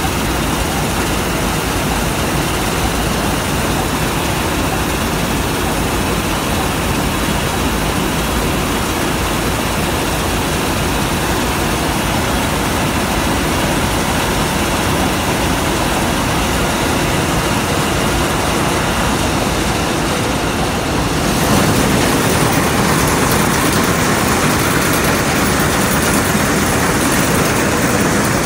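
Malkit 997 combine harvester's engine and machinery running steadily while it unloads paddy grain through its spout. About three-quarters of the way through the sound steps up a little louder and fuller as the combine works in the crop.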